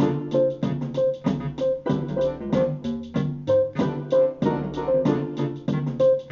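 Live electronic instrumental music on keyboard and sequencer: a fast, even run of keyboard notes, about four or five a second, with a recurring higher note, over programmed beats.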